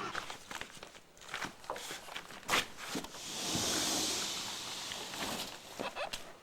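Footsteps with scattered clicks and knocks, and a hissing swell a few seconds in.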